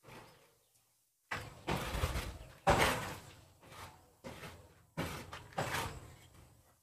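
A series of about eight sudden knocks or scrapes at uneven intervals, each trailing off quickly.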